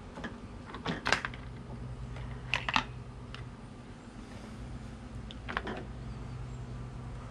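Hard plastic parts of an electric mower's handle switch housing clicking and knocking as they are pulled apart and handled. There is a sharp click about a second in, a quick double click a little later, and another a few seconds after that, over a faint steady low hum.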